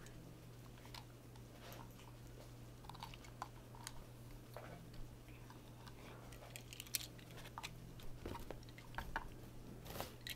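Faint scattered clicks and rustles over a low steady hum, a little busier and sharper in the last few seconds.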